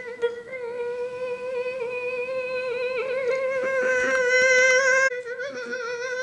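A voice humming one long, steady high note through closed lips, with a slight wobble in pitch, voicing a character holding his breath to stop the hiccups.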